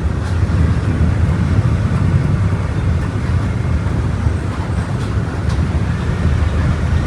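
Volkswagen Volksbus 17.230 Euro VI bus engine running steadily: a low, even drone with road noise over it.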